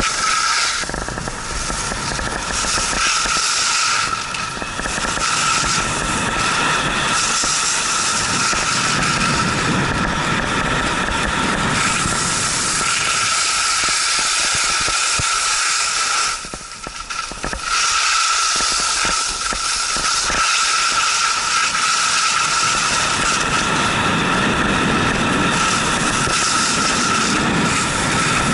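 Ski edges scraping over hard, icy snow during a downhill run: a steady loud hiss and scrape, which eases for about a second around the seventeen-second mark before picking up again.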